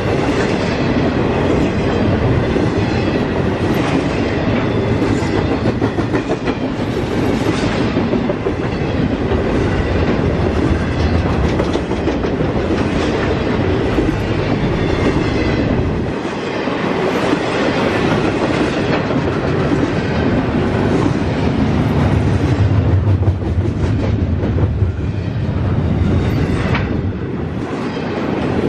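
Norfolk Southern freight train rolling past, its cars' wheels clacking in a steady rhythm over the rail joints.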